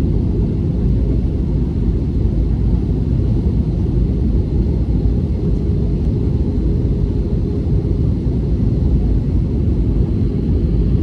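Steady low rumble of an airliner in flight, heard from inside the passenger cabin: engine and airflow noise.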